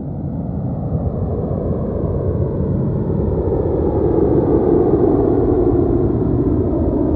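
Airplane engine rumble that grows louder over the first few seconds, then holds steady.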